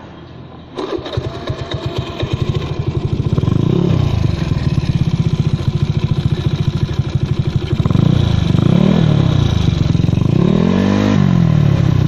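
Honda Vario 110 carburettor scooter's single-cylinder four-stroke engine starting about a second in and settling into a pulsing idle through an AHM standard racing exhaust, with three short throttle blips that rise and fall.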